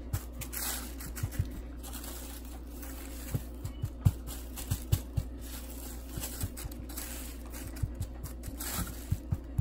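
A hand patting and pressing a flounder fillet into dry fish-fry breading inside a plastic shopping bag: irregular soft taps and scraping with crinkling plastic, over a steady low hum.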